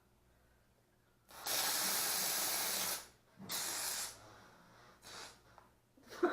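Aerosol can spraying in bursts: one long spray of about a second and a half, a shorter one about half a second later, then a faint brief puff.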